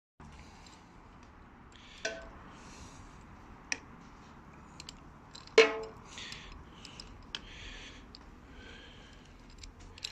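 Metal hand tools being handled while working on the motorcycle's front end: scattered clicks, scrapes and short rustles, sharp metallic knocks about two seconds in and again near four seconds, and a loud ringing metal clank a little past halfway.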